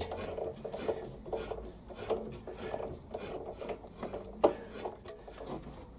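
Hand tap cutting a thread in cast iron, turned by hand in a drill chuck: faint, irregular scraping and rubbing strokes, with one sharp click about four and a half seconds in.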